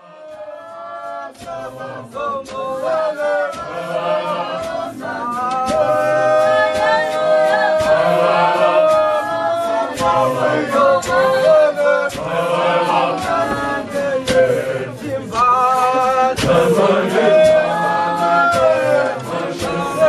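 A church congregation of many voices singing a hymn together in harmony, with sharp percussive beats keeping time. The singing swells over the first few seconds, then carries on at full strength.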